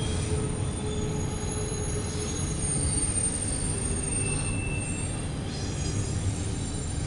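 Freight train of intermodal container and autorack cars rolling past: a steady rumble of wheels on rail, with thin high wheel squeals coming and going over it.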